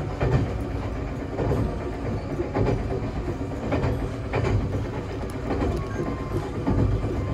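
Ex-Odakyu Romancecar limited express running along the line, a steady low rumble with its wheels clacking over rail joints about once a second at uneven spacing, heard from inside the front observation cabin.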